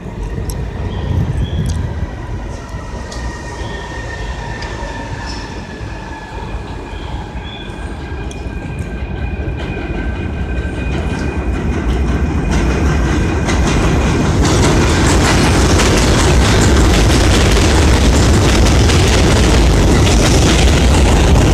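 A New York City subway train running into the elevated station and passing close along the platform. At first there is a high whine from the rails that slowly falls in pitch; the train grows steadily louder until the cars pass right by in the last third.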